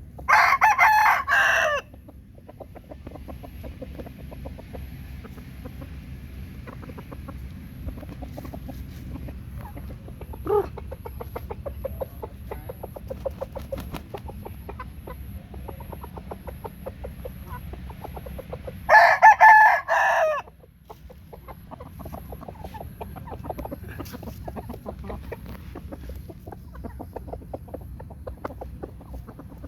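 Roosters crowing: two loud crows, one right at the start and another about 19 seconds in, each lasting about a second and a half. Between the crows, quieter clucking and scattered clicks from the flock.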